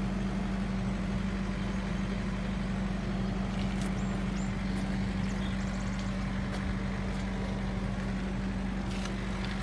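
Heavy truck's Cummins ISX diesel engine idling, a steady, even low hum that holds unchanged throughout, with a few faint clicks.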